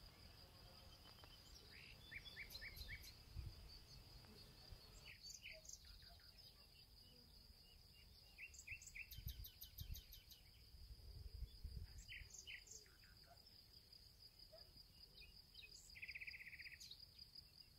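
Faint outdoor garden ambience: a steady high-pitched insect drone, with scattered short bird chirps in small groups and a brief buzzy trill near the end, over a faint low rumble.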